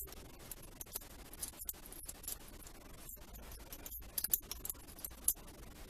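Scattered light clicks and taps of small metal parts being handled as a Kobalt 90-tooth ratchet's internals are fitted back together, with a few quick clicks about four seconds in.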